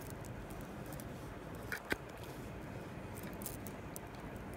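A few small clicks of a gold-plated imitation necklace being handled in the fingers, the sharpest about two seconds in, over faint steady room hiss.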